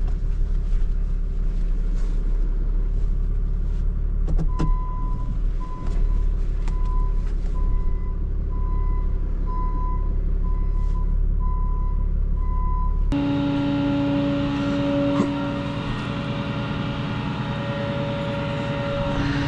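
Tow truck engine running while it backs into position, its reversing alarm beeping at a steady pace from about four seconds in. About thirteen seconds in the sound changes abruptly to a different steady droning hum.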